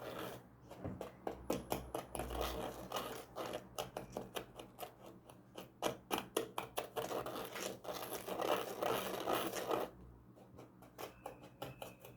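A stirrer scraping and clicking rapidly inside a kit volcano, mixing dry sodium bicarbonate and citric acid; it stops about ten seconds in.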